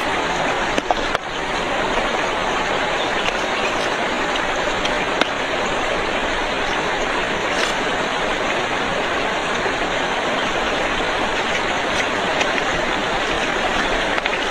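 A steady rush of running water, with a few faint clicks.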